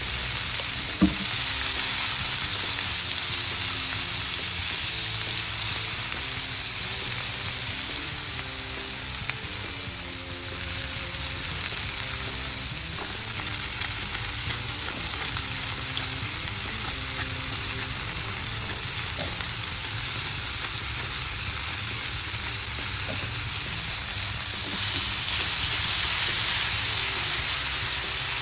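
Food sizzling in a hot frying pan, a steady hiss, with stirring in the pan and a single click about a second in.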